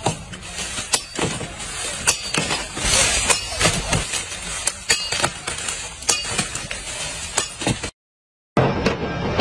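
Machete chopping sugarcane stalks: sharp, irregular strokes about one or two a second, over the rustle of cane leaves.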